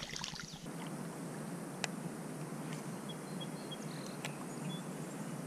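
Steady outdoor background hiss on a pond, with two sharp clicks and a few faint, short high chirps from birds or insects.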